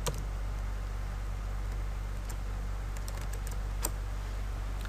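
Computer keyboard typing: a handful of separate keystrokes, most of them between about two and four seconds in, over a steady low hum.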